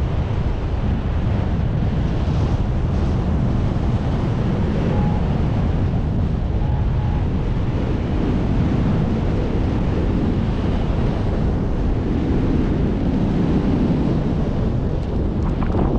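Wind buffeting the microphone: a steady, loud rumble of rushing air, heaviest in the low end, with a couple of faint short tones about five and seven seconds in.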